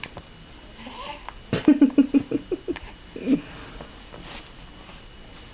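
Laughter: a quick run of short laughing pulses about a second and a half in, followed by one more brief burst a moment later.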